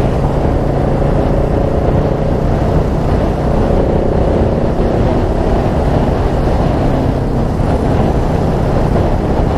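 Single-cylinder dual-sport motorcycle engine running steadily while riding along, heard from on the bike, with wind noise on the microphone.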